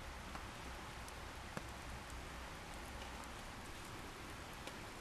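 Wood campfire burning: a steady hiss with scattered small crackles and pops.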